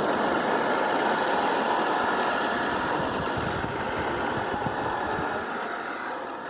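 Battery-powered remote-control car running on the road: a steady whirr of its motor, drivetrain and tyres that fades slowly, as if driving away, and starts to grow again near the end.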